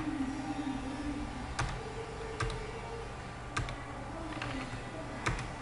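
Computer keyboard being typed on: a few sharp, irregularly spaced key clicks over a steady low hum.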